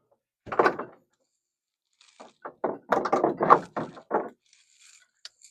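A single heavy thunk about half a second in, then a quick run of knocks and clunks between two and four seconds in.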